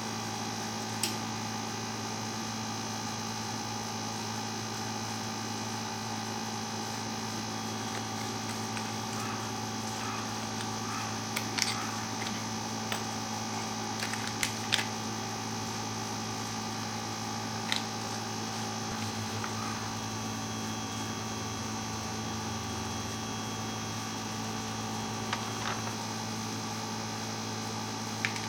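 A steady hum made of several held tones, with a few faint clicks scattered through it.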